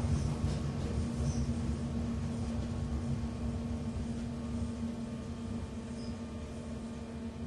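Interior sound of a Docklands Light Railway train carriage: a steady low rumble with a constant hum, easing slightly in level, and a few faint short high squeaks.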